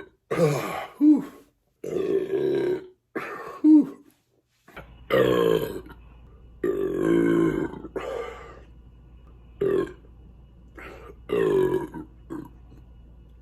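A man belching over and over, about ten burps in a row, some long and drawn out and others short, brought up by the carbonation of the beer he has drunk.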